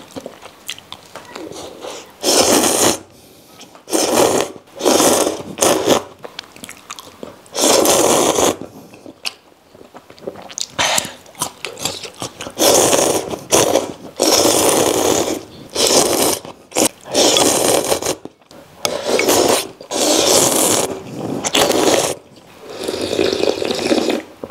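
Loud slurping of noodles in a sour-spicy broth: about fifteen drawn-in slurps, each half a second to a second long, with quieter chewing between. Near the end the broth is sipped from the tipped bowl.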